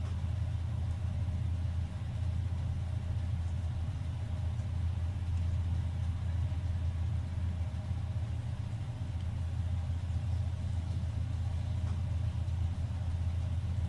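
Steady low hum that stays constant throughout, with no words over it.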